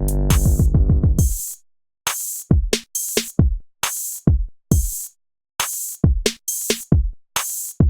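Electronic intro music with a drum machine. It opens on a dense chord over a booming kick pattern, stops about a second and a half in, then goes on with sparse kick-and-hi-hat hits about two a second.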